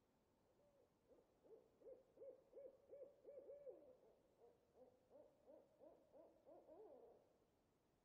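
Owl hooting: a faint, quick run of short hoots, about three a second, lasting some six seconds.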